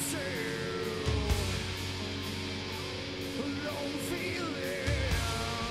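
Background rock music with guitar, its notes held and bent; a heavier low part swells in about a second in and again near the end.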